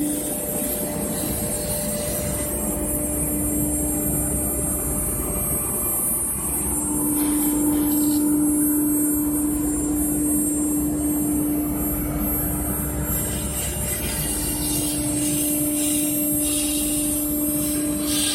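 CNC router carving EPS foam: the spindle motor runs steadily with a constant hum and a high whine, and the cutter works through the foam. The hum fades briefly about three-quarters of the way through, then comes back.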